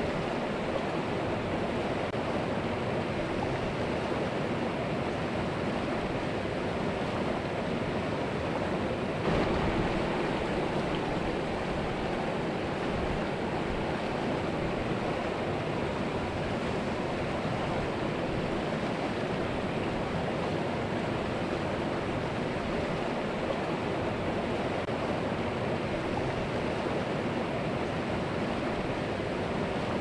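Flowing river water, a steady rushing noise with a brief small swell about nine seconds in.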